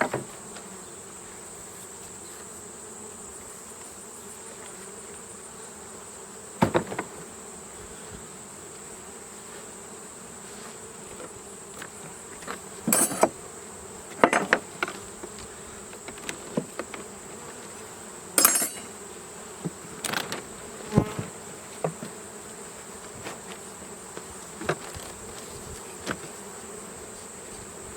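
Honeybees buzzing steadily around an open hive, with several sharp knocks and clacks scattered through.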